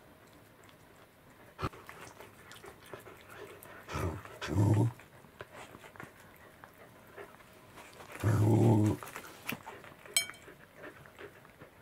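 A pet growling low twice, each growl about a second long, over soft wet chewing clicks as a cat eats pieces of fish from a plate. A short metallic clink sounds near the end.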